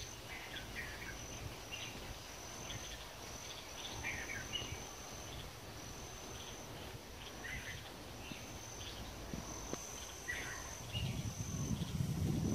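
Outdoor ambience: an insect trilling on one high, steady pitch in long stretches with short breaks, with scattered short bird chirps. A low rumble grows louder near the end.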